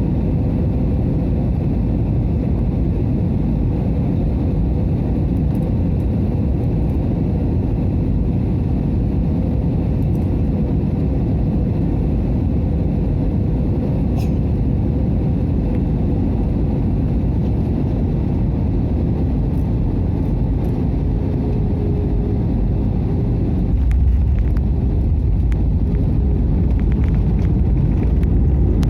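Airbus A320-200 cabin noise from an economy window seat: a steady roar of engines and airflow with a faint steady hum. About 24 seconds in it turns louder and deeper, with rattling.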